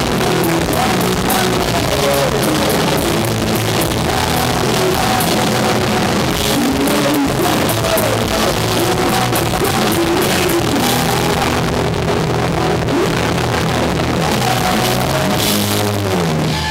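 Live rock band playing, with the drummer driving on kit and cymbals. The cymbals drop out for a few seconds about twelve seconds in, then come back.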